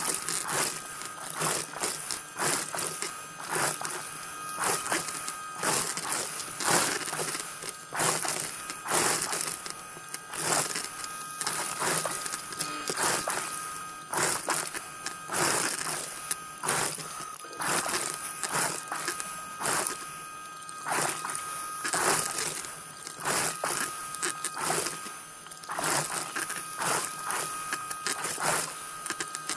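Underwater diver propulsion scooter running with a steady high motor whine, mixed with repeated hissing bursts of regulator exhaust bubbles that swell every second or two.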